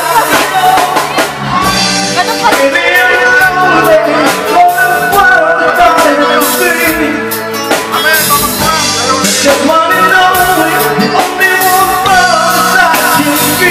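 Live band playing a rock song: a man singing the lead into a microphone with women's backing vocals, over drum kit and electric guitar.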